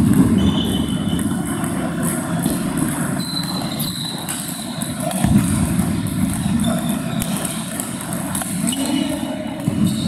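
Table tennis balls clicking off tables and bats, a rally at the near table with play at other tables behind it, over a steady low rumble.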